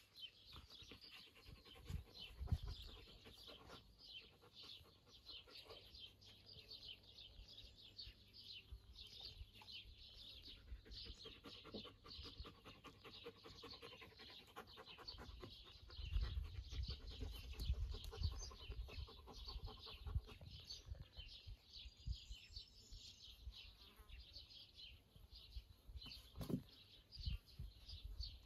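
Faint, continuous chirping of small birds, with low rumbles of wind on the microphone a few times.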